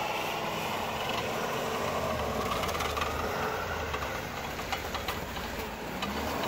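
Ford F-250 Super Duty's Power Stroke diesel engine pulling under load as the pickup pushes up through deep, rutted snow, tyres churning, with a run of clicks and rattles in the middle.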